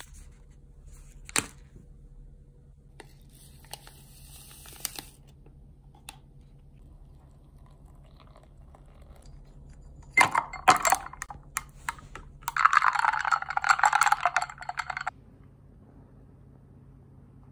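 A coffee drink being made in a glass tumbler. There is a sharp clink about a second in, a packet torn open around four seconds, and a quick run of clinks against the glass around ten seconds. The loudest part comes near the end: about two and a half seconds of liquid pouring into the glass.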